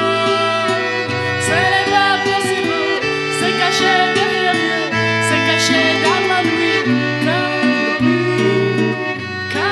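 Chanson band music: held chords over a bass line that changes note every second or two, with a melody sliding between notes above them.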